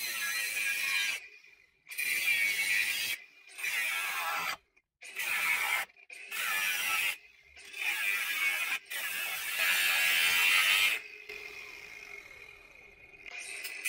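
Cordless angle grinder with a cut-off wheel making rough cuts into aluminum, in about seven spells of a second or two each with short breaks between. Near the end it runs more quietly with a steady whine.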